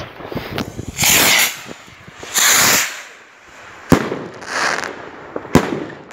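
Two 55 mm firework rockets going off one after the other: each launches with a hiss lasting about half a second, then two sharp bangs about a second and a half apart as they burst in the air.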